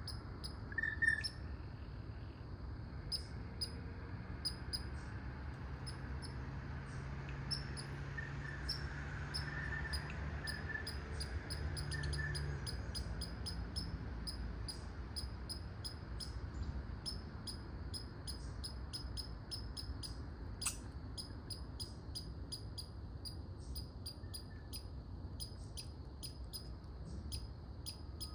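Short, high-pitched chirps from a small animal, repeated evenly about twice a second.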